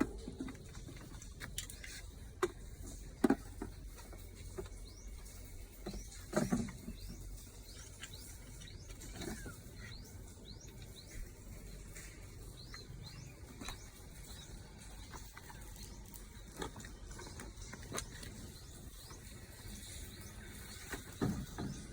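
Scattered light clicks and knocks, with a louder knock about six seconds in, and faint high chirps in the middle stretch.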